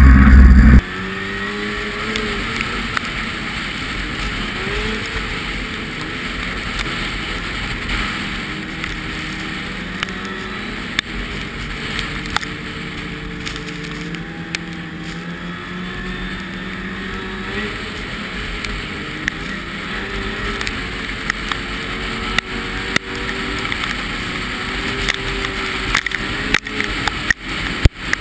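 A vehicle engine running steadily, its pitch drifting slowly up and down, with scattered clicks and ticks. A loud low rumble cuts off under a second in.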